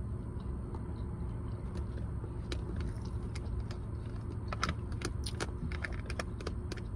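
Sharp clicks and light rattling from handling food in a plastic takeout container, starting about two and a half seconds in and thickest in the middle, over a steady low hum inside the car.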